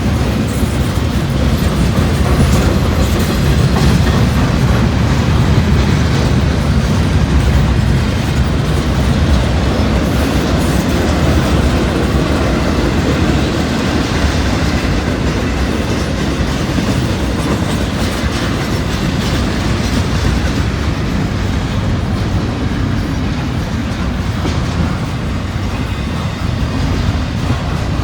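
Cars of a long intermodal freight train rolling past, a steady rumble with wheels clattering over the rails.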